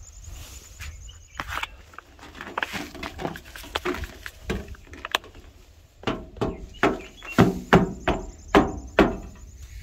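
A plastic bucket scooping and scraping loose granules off a steel trailer bed, with boots knocking on the metal floor. From about six seconds in the knocks come louder and quicker, about two a second.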